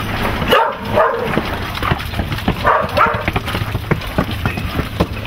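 A dog barks in two short bursts, about half a second in and again near three seconds, over the quick footsteps of several people running up concrete stairs.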